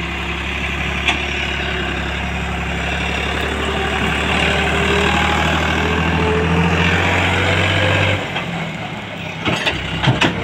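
Farm tractor's diesel engine running under load as it hauls two trailers heavily loaded with sugar cane past, a steady low drone that drops away suddenly about eight seconds in. A few sharp knocks follow near the end.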